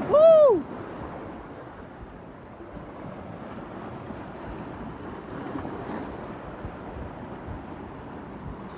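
Steady rush of ocean surf and wind, with wind buffeting the microphone. Right at the start, one short, loud pitched call rises and falls in pitch.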